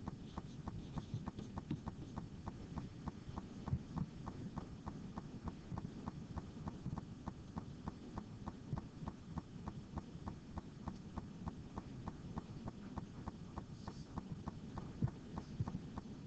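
Quiet room tone with a faint, regular ticking, about four ticks a second.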